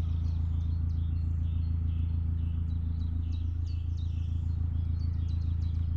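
A boat engine running steadily with a low, even hum, while a small bird repeats a short two-note call, a high falling note then a lower one, about twice a second.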